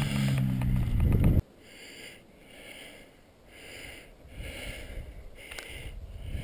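A loud steady hum cuts off suddenly about a second and a half in. After it, footsteps crunch through snow at about one step every two-thirds of a second.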